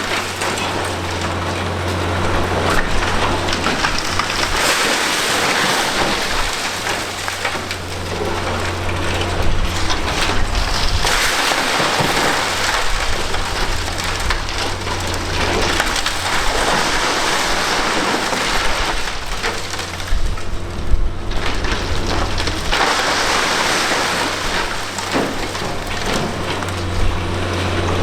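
Liebherr R 960 high-reach demolition excavator running steadily under load while concrete and masonry are crushed and rubble pours down, a constant crackling clatter with scattered knocks.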